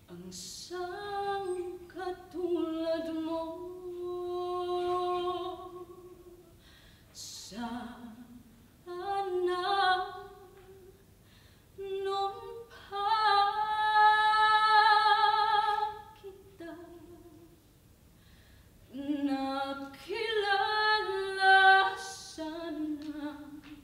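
A woman singing unaccompanied, in phrases broken by short pauses, holding one long note with vibrato around the middle.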